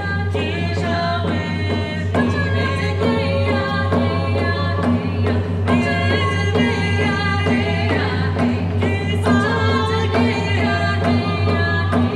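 Native women singers singing a hand-drum song together in several voices, keeping a steady beat on rawhide hand drums struck with padded beaters.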